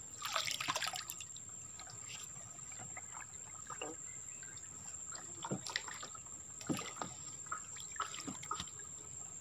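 Water trickling and dripping with small, irregular splashes around a small boat moving slowly along a still creek. A faint, steady high-pitched tone runs underneath.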